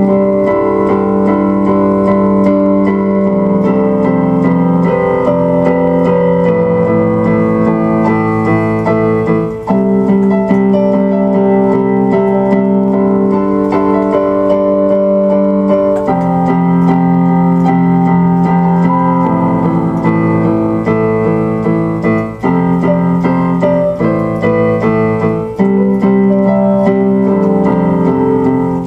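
Keyboard music: sustained piano or electric-piano chords that change every few seconds.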